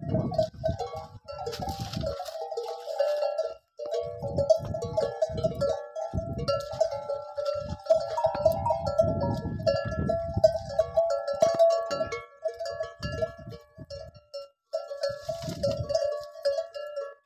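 Metal bells ringing irregularly, a few fixed notes recurring and overlapping, with gusts of wind rumbling on the microphone.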